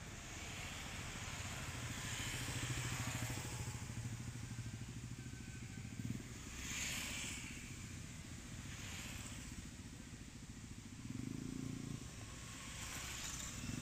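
Motor vehicle engine running steadily, like a motorcycle nearby, with a low hum that swells a little a couple of seconds in and again near the end.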